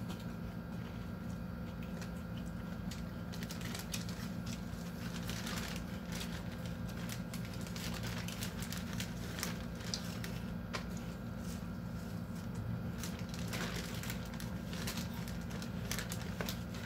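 Plastic salad-kit bag crinkling and crackling as it is handled and shaken, in many irregular small crackles over a steady low hum.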